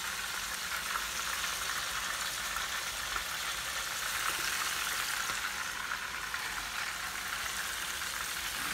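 Seasoned skin-on chicken thighs frying in hot oil in an electric skillet: a steady sizzle with scattered small crackles.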